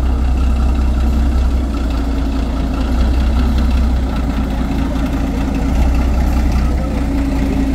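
Steady low rumble of a running vehicle, even throughout with no knocks or rhythm.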